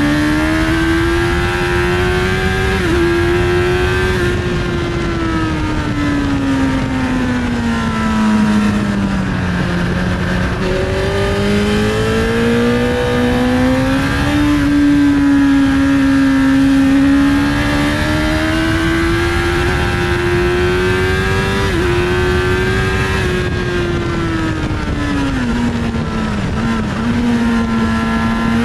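750 cc inline-four superbike engine heard from onboard at high revs on track, its pitch rising under throttle and falling off into corners, with short dips at gear changes and a steady rush of wind.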